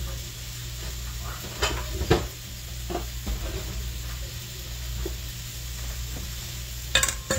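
Pork chops sizzling in a frying pan as a steady hiss over a low hum. A few light knocks and clunks come through, with a louder clatter near the end.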